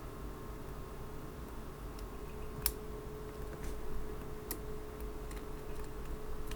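A few sparse, sharp light clicks of small tools touching the watch during glue clean-up, over a faint steady hum.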